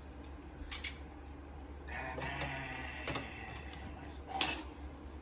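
Handling noise from unpacking a MIDI keyboard: a few light clicks and a short rustle or bump about four and a half seconds in, over a low steady hum.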